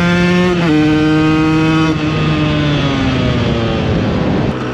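Supermoto motorcycle engine under way: the revs climb, drop suddenly with an upshift well under a second in, hold for about a second, then fall steadily as the throttle is rolled off.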